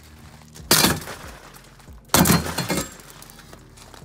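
A steel pry bar smashing into a Honda Civic's door window, with glass breaking: two heavy blows about a second and a half apart.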